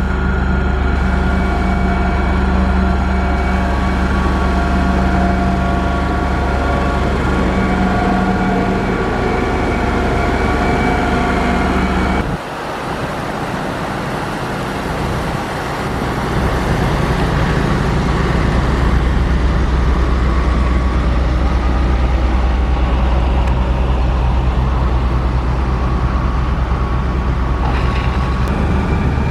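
Heavy diesel construction machinery running steadily, with a deep engine hum; about twelve seconds in the low hum cuts off abruptly, and a few seconds later a heavy engine sound builds up again and runs on.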